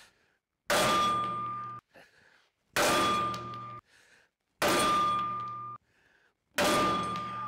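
Sledgehammer blows on a length of old PTO shaft used as a drift to drive a seized rotary-cutter wheel spindle out of its housing. There are four heavy strikes about two seconds apart, and each metallic clang rings on with a clear tone for about a second before cutting off.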